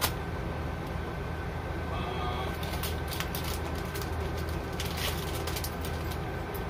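Plastic-wrapped items rustling and clicking as they are handled and lifted out of a cardboard shipping box, over a steady low hum. A brief faint pitched sound comes about two seconds in.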